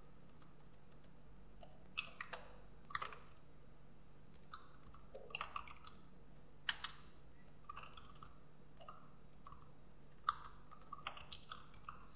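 Computer keyboard keystrokes, tapped in short irregular runs with pauses between them as a command is typed. One keystroke a little past the middle is louder than the rest.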